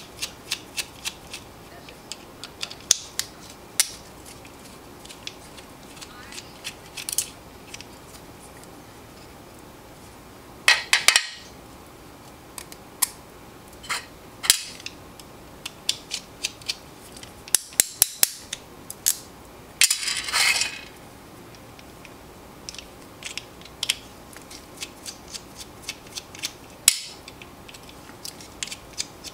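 Small metal clicks and taps from a folding knife being taken apart with small hand tools, with two short scraping rattles about eleven and twenty seconds in.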